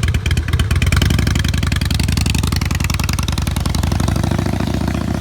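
Harley-Davidson Fat Boy's fuel-injected Twin Cam 88B V-twin idling steadily, warmed up.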